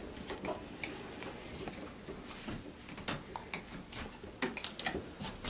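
Faint, scattered light clicks and taps in a quiet small room, a few more of them after the middle.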